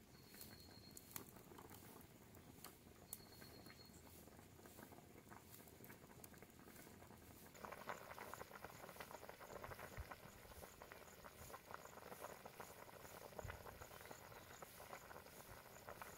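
Chicken curry simmering in its pot after the water has gone in: a faint, busy crackle of bubbling that grows denser about eight seconds in.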